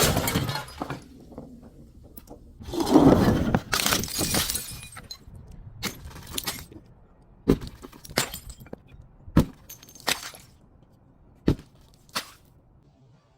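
A glass bottle being crushed and breaking: a crash at the start, a longer crunching break about three seconds in, then a string of single sharp cracks of glass.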